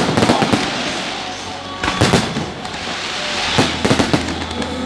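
Fireworks display: a dense, continuous crackle of bursting shells with sharp bangs at the start, about two seconds in, and again near the end.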